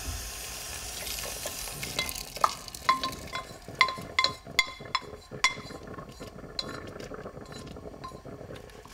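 A bundle of wooden stirring sticks knocking and scraping against an aluminum saucepan as it is emptied into a pot of thick cornmeal batter. There is a run of ringing metal clinks between about two and six seconds in, then softer stirring and scraping.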